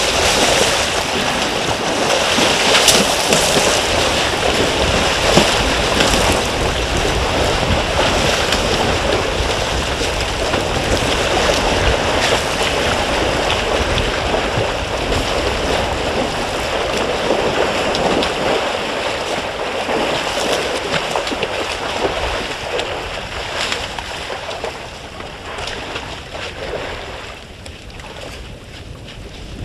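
African elephants splashing and wading in a shallow waterhole: continuous sloshing of churned water with occasional sharper splashes. It dies down over the last several seconds as the herd walks out of the water.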